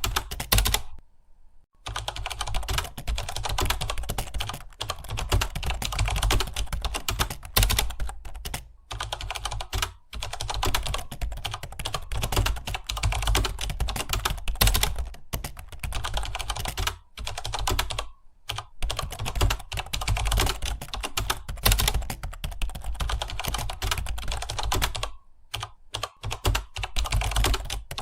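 Rapid, continuous typing on a computer keyboard, fast keystroke clicks with a few brief pauses, the longest about a second in.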